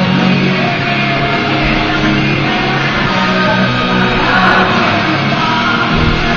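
Rock music playing steadily.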